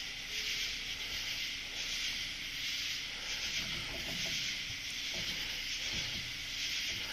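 A night chorus of insects, a steady high buzzing hiss that swells and fades about once a second, with a faint low hum underneath.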